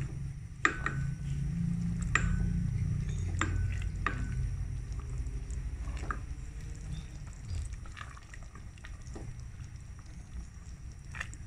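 Wooden spatula stirring soup in a stainless steel pot: the liquid sloshes while the spatula knocks and scrapes against the pot's side, every second or so in the first half and a few times near the end.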